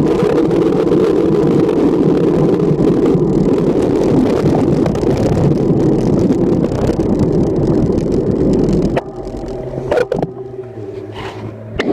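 Wind rushing over the microphone with road rumble as a road bike rides along at speed. About nine seconds in, it drops away as the bike slows, leaving a low steady hum of traffic and a couple of sharp clicks.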